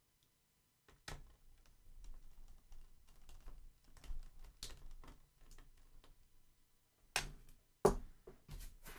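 Faint clicks, ticks and scrapes of a small screwdriver and tiny screws being worked out of a laptop's screen panel, with a few sharper taps near the end.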